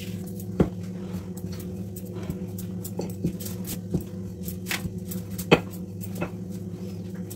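Rolling pin working dough thin on a rolling board, with scattered knocks and taps as the pin meets the board, the sharpest about five and a half seconds in. A steady low hum runs underneath.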